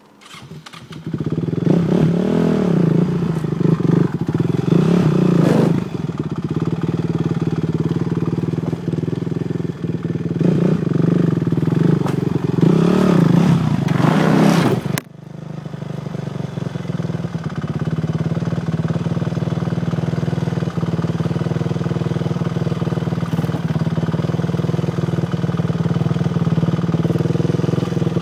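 Honda TRX450R quad's single-cylinder four-stroke engine through a Yoshimura exhaust, starting about a second in and revving up and down several times. About halfway through the sound drops off suddenly, then the engine comes back running steadily at a constant pitch.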